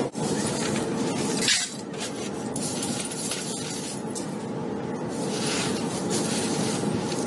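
Broken glass shards scraping and clinking as they are raked over with a wire tool and scooped up by hand, a continuous gritty crunching and rattling. Briefly at the start, glass marbles clink against one another.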